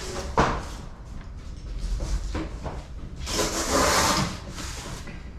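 A large cardboard shipping box being opened and handled: rubbing and scraping, a sharp knock about half a second in, and a louder, longer scrape about three seconds in.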